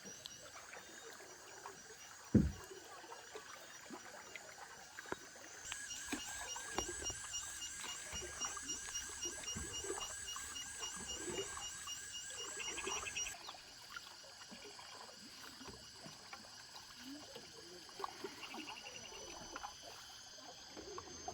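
Canoe paddles dipping and splashing in lake water in irregular strokes, with one low thump about two seconds in. Behind it, jungle insects keep up a high, fast-pulsing trill that grows louder about a quarter of the way in and cuts off a little past halfway.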